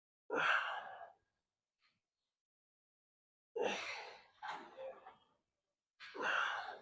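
A man's forceful exhales under effort, three heavy breaths about three seconds apart, as he strains through a set of bent-over cable flies.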